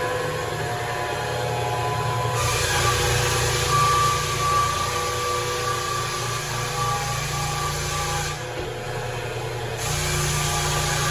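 Rented floor sander running on hardwood floorboards: a steady motor hum over the rasp of the sanding drum. The sanding noise jumps up sharply about two seconds in, drops away briefly near the end, then comes back.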